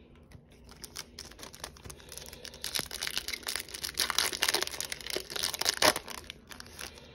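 Foil-lined Stadium Club baseball card pack crinkling and tearing as it is ripped open by hand. A dense crackle, light at first, grows louder from about three seconds in and is loudest near the end.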